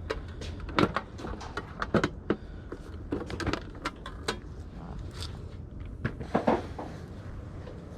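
Irregular knocks, clicks and rattles of hard objects being handled and shifted about, over a low rumble.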